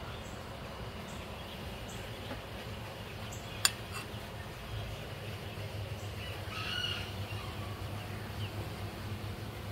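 Steady low outdoor hum, with a single sharp click about three and a half seconds in and a short bird chirp near seven seconds.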